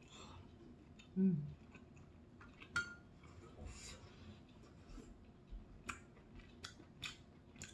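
Mukbang eating sounds: chewing a mouthful of pan-fried jeon, with a short hummed "mm" about a second in. Wooden chopsticks click against the bowl and pot several times as udon noodles are picked up, most often near the end.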